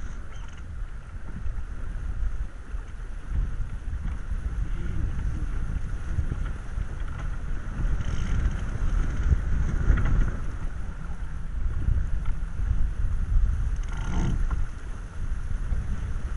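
Wind buffeting the microphone over the rush of water along the hull of an Elvström 717 keelboat under sail. There are a few brief louder surges about halfway and near the end.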